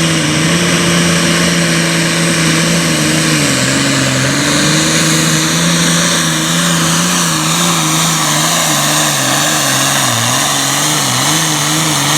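Super farm pulling tractor's diesel engine running hard at high revs, with a strong hiss over the engine note. The revs hold steady, drop about three and a half seconds in, then rise and fall in quick swings near the end.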